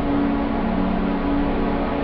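Ambient steam drone: a steady rushing, hiss-like noise with a few sustained low tones held over it. One tone fades out near the end as a higher one comes in.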